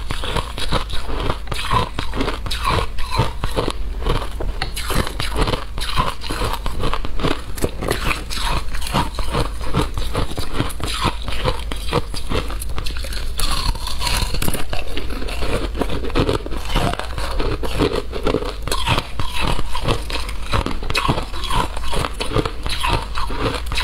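Shaved ice and frozen ice chunks being chewed close to a clip-on microphone: a steady, dense run of crunches.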